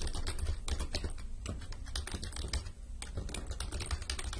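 Typing on a computer keyboard: quick, uneven keystrokes with a brief pause a little under three seconds in, over a steady low hum.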